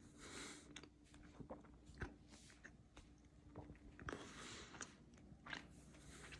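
A person chewing a mouthful of cold pizza, faint and close, with small irregular wet mouth clicks and soft breathy hisses.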